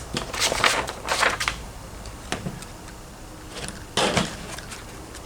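Handling noise from a planer board and its small hardware being worked by hand: several short rustling scrapes and a few sharp clicks, with quiet gaps between them.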